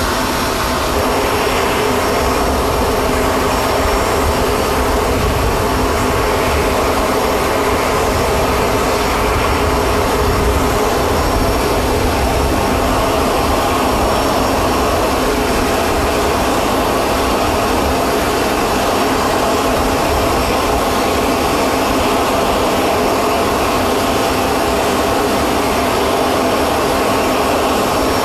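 Aircraft jet turbine running steadily: a constant loud roar with a steady whine over it.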